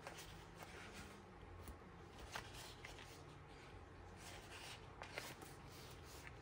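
Faint rustling and crinkling of paper sticker sheets being flipped and handled, with a few sharper crackles about two and a half and five seconds in.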